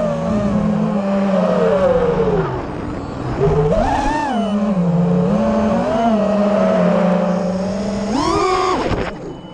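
FPV quadcopter's brushless motors whining, the pitch swinging up and down with the throttle. A sharp rise a little after eight seconds, then the motors drop off just before the end.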